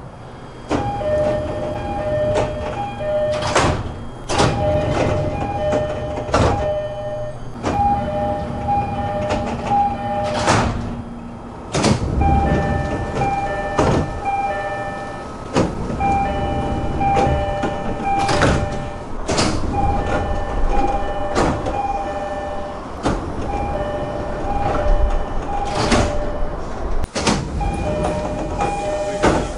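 JR East-type three-tone door chimes on E231-1000 and E233-3000 series commuter trains, odd-sounding variants of the standard chime, playing over and over as two alternating pitches. Train doors slide open and shut with sharp knocks between the chimes.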